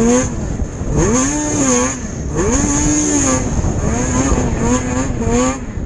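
Race snowmobile's two-stroke engine revving hard, its pitch climbing and dropping about five or six times as the throttle is worked over the course, heard up close from the rider's seat. A steady high hiss runs under it.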